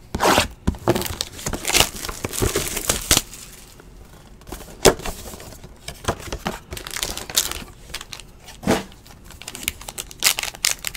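Cardboard trading-card box being opened by hand and the black pack inside handled: a run of short rustles, scrapes and crinkles, with a couple of sharper knocks about five and nine seconds in.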